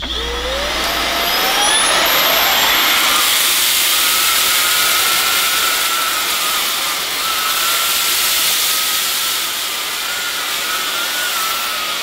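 Bosch BCS612GB cordless stick vacuum switching on, its motor whine rising over the first two seconds or so, then running steadily with a wavering high tone over a loud rush of air as it sucks rice up off a carpet.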